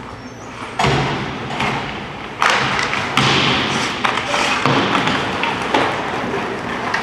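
Ice hockey play in an arena rink: several sharp thuds and knocks, the first about a second in and louder ones around two and a half and three seconds in, from the puck, sticks and players hitting the boards, over a noisy scraping of skates on ice.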